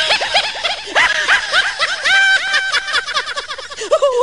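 High-pitched human laughter: a rapid run of short rising-and-falling 'hee' sounds, several a second, with a couple of briefly held squeals about two seconds in.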